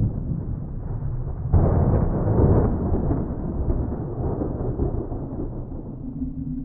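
Thunder rumbling low and steady, with a sudden louder peal about a second and a half in that rolls away over the next few seconds.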